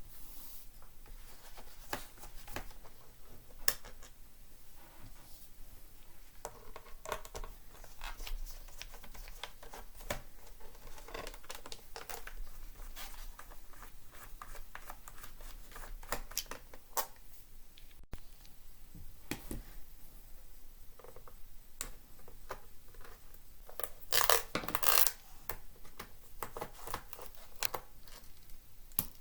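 Work on a laptop's plastic bottom case: scattered light clicks, taps and scrapes, with louder clinking of small metal parts near the end.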